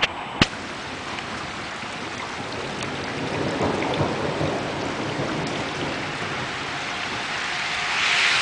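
Thunderstorm: steady rain with a low rumble of thunder that swells about three seconds in and dies away. A single sharp click just after the start, and the hiss of the rain grows louder near the end.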